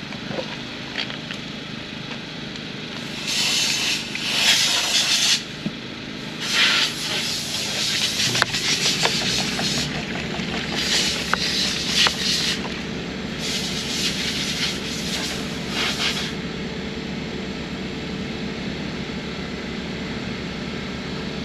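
Water sprayed onto a headlight lens in four bursts of a couple of seconds each, rinsing off the slurry after 2000-grit wet sanding.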